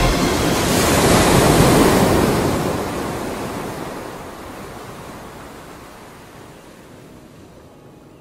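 Rushing sea and wind noise, like surf, that swells one to two seconds in and then slowly fades away.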